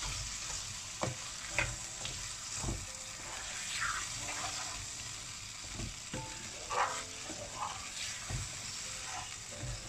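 Diced potatoes sizzling in fried masala in a frying pan while a wooden spatula stirs them to coat them in the spices, with irregular soft knocks and scrapes of the spatula against the pan about once a second.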